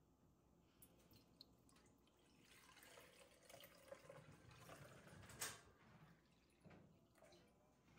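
Fresh milk pouring from a stainless steel milk pail through a steel funnel and mesh cheesecloth strainer into a glass jar: a faint splashing trickle that builds from about two and a half seconds in. A sharp clink comes a little past five seconds.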